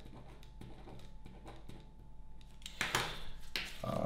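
Ballpoint pen scratching lightly on a small slip of paper, then louder paper rustling for about a second near the end as the slip is handled around the pen.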